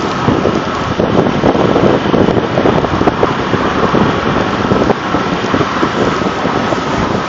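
Wind rushing and buffeting on a microphone held out the window of a moving pickup truck, mixed with the truck's driving noise, with a faint steady whine underneath.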